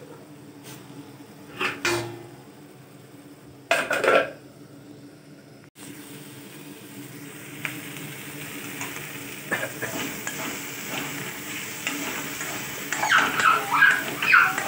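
Khukhdi mushrooms frying in oil in a steel kadai, sizzling, while a steel ladle stirs and scrapes the pan. Two brief metal clatters come about two and four seconds in; the sizzle grows from about six seconds, and the loudest scraping stirs come near the end.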